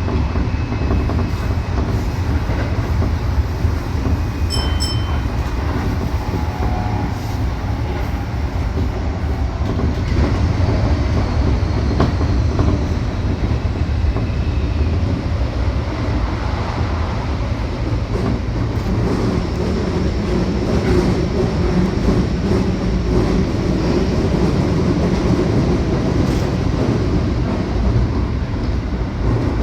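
Keikyu electric train running along the line, heard from inside the car: a steady rumble of wheels on track and running gear, growing a little louder about a third of the way through. A brief high tone sounds about five seconds in.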